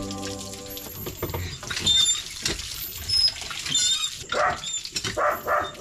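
A dog giving a run of short yipping barks in the last second and a half, with water splashing around them.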